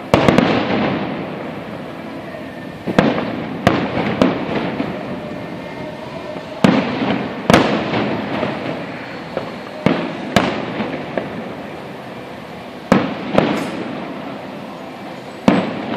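Aerial fireworks shells bursting in a display: about a dozen sharp bangs at irregular intervals, several in quick pairs. Each bang trails off in a rumbling echo with crackling.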